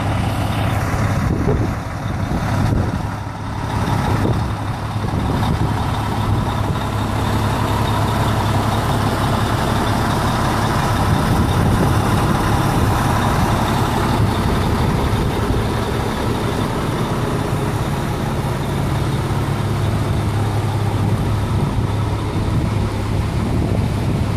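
1989 Mack fire engine's diesel engine idling steadily.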